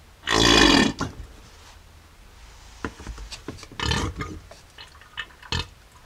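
Plastic fluid bottle with a threaded nozzle being squeezed to pump ATF into an NP231 transfer case's fill hole. A loud sputtering squelch starts about a third of a second in and lasts about half a second, followed by a few shorter squelches and clicks.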